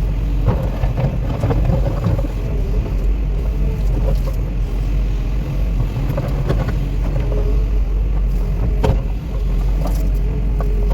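Cat 316E excavator running steadily at work, with a constant low engine rumble, a wavering mid-pitched whine over it, and several short sharp knocks along the way.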